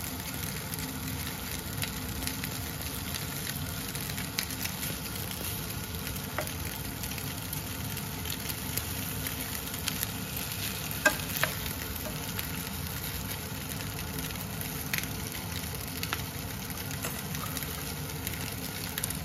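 Maultaschen and onions pan-frying, a steady sizzle with a few small pops scattered through it, the sharpest about eleven seconds in.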